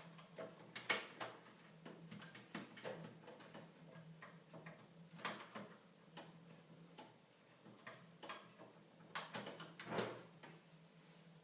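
Faint, irregular clicks and taps of hands handling a PlayStation 3 Fat's internal parts while plugging a cable back in, the sharpest about a second in and near the end. A faint steady hum runs underneath.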